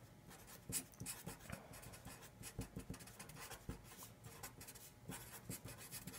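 Sharpie felt-tip marker writing on a sheet of paper: faint, quick, irregular scratching strokes as a line of words is written.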